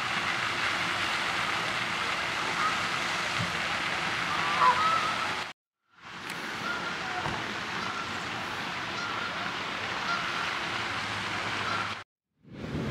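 Geese honking over a steady rush of water from a pond fountain; one louder, wavering honk about four and a half seconds in. The sound cuts out for a moment about halfway through and again near the end.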